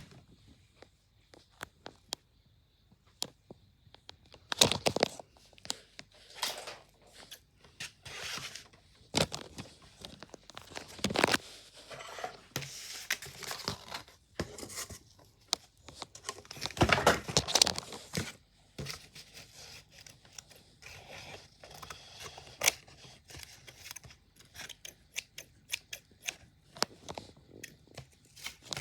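A cutting fidget board being cut and torn: irregular sharp snips and clicks mixed with longer scraping, tearing swishes, loudest around five, eleven and seventeen seconds in.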